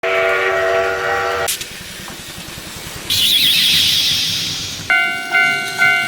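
A steam-train whistle chord sounds for about a second and a half over a low rumble. Then comes a loud hiss of steam, and near the end a level-crossing bell starts ringing about twice a second.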